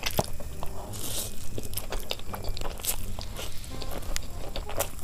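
Close-miked eating of stir-fried noodles: a hissing slurp about a second in, then wet chewing and mouth smacks.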